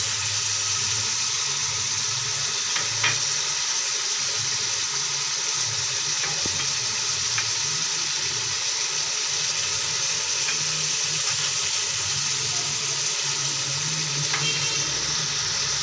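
Beef pieces sizzling steadily in hot ghee in an aluminium pressure-cooker pot, with a light click about three seconds in and another near the end.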